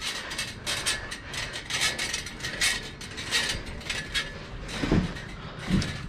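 A run of irregular clicks, rattles and scrapes close to a body-worn GoPro as its wearer moves, with two dull thumps near the end.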